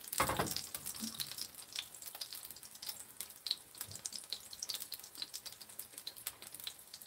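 Kimchi pancake frying in oil in a nonstick pan on a portable gas burner: a low, steady sizzle with many small crackling pops, and one louder burst just after it begins.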